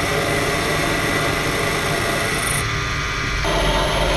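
Proxxon PD 250/e mini lathe running steadily, its motor and spindle giving a constant whine over a mechanical hum. About three seconds in the sound shifts, with more low hum afterwards.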